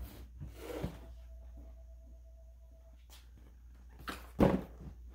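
A large cardboard box being handled on a wooden dresser: a soft scrape under a second in, then a louder brief brush and scrape of cardboard about four and a half seconds in as the box is lifted.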